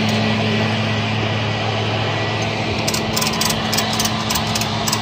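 Tow truck's engine idling with a steady hum, and from about three seconds in a quick series of sharp clicks as the wheel-lift's ratchet strap is cranked tight around the car's tyre.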